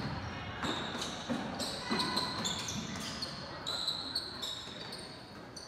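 Basketball bouncing on a gym floor during play, with many short high-pitched sneaker squeaks.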